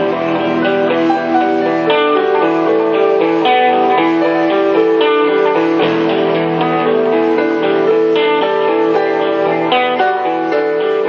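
Live instrumental music: held chords with a melody moving over them, no singing.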